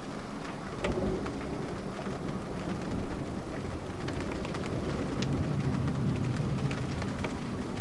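Rain falling during a thunderstorm, individual drops ticking sharply, with low thunder rumbling and swelling in the second half.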